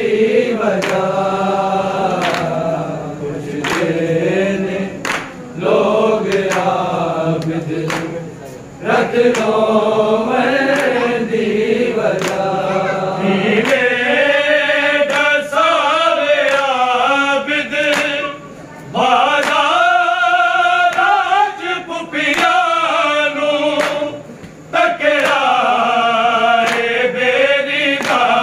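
Men of a noha-khwani party chanting a Punjabi noha, a Shia elegy, together in long melodic phrases. Sharp slaps of matam (chest-beating) keep time at about three beats every two seconds.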